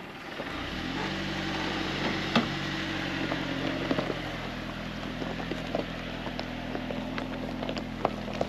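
A four-wheel drive's engine pulling under load as it sets off up a steep track. Its note comes in about a second in and settles a little lower about halfway through, with scattered sharp clicks and knocks over it.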